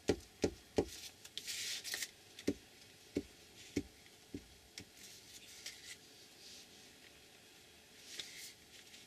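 Glue stick being applied and paper pieces pressed down onto a journal page: a run of soft thuds, mostly in the first half, with short bursts of paper rustling.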